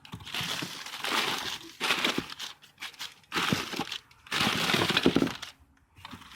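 Paper or packing material crinkling and rustling as it is handled and pulled out of a box, in several bursts with short pauses between them.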